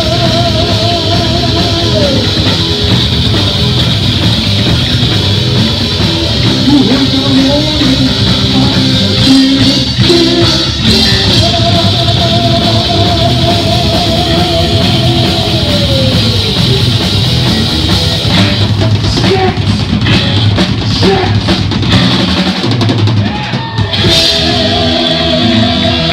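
Heavy metal band playing live and loud: distorted electric guitar, bass and a pounding drum kit, with long held notes that waver in pitch (wide vibrato). About two thirds of the way through the drums and cymbals stand out more for a few seconds.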